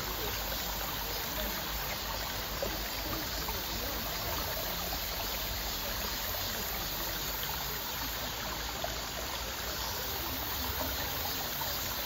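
Shallow rocky mountain stream flowing steadily over stones.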